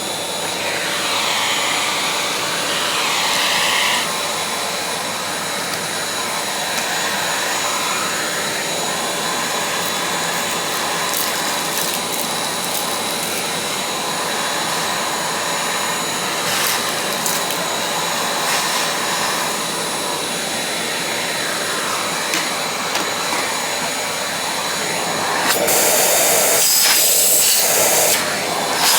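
Vacuum cleaner running steadily with a constant motor whine, as the head is worked over the floor. It grows louder and hissier for a few seconds near the end.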